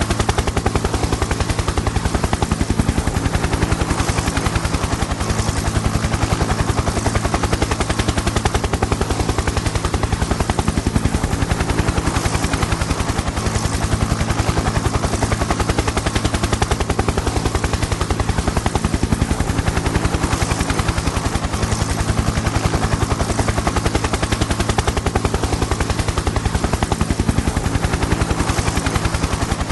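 Helicopter in flight: the rotor blades beat rapidly and steadily over a constant low engine hum.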